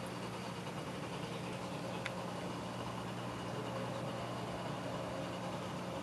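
Steady low mechanical hum over an even hiss, from a reef aquarium's water pumps running, with a faint tick about two seconds in.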